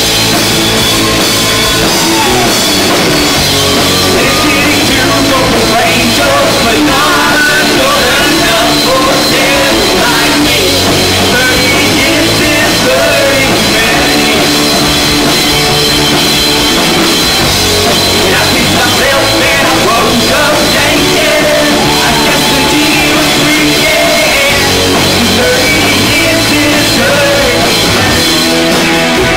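Rock band playing live: electric guitars, bass guitar and a drum kit, loud and steady with no break.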